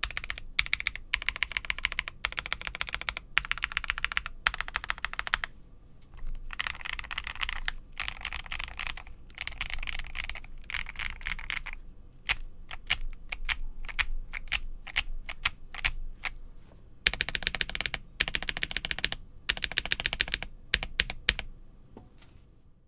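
Typing on an Akko PC75B Plus mechanical keyboard with lubed Akko CS Air linear switches, a polycarbonate plate and Cherry-profile keycaps. Keys clatter in fast runs of a second or more, broken by short pauses, and the typing fades out near the end.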